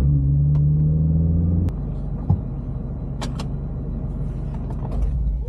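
Toyota GT86's flat-four engine pulling in gear, rising slightly in pitch, then dropping off suddenly about a second and a half in as the throttle is lifted for a gear change. Lower engine and road rumble follows, with a few faint clicks.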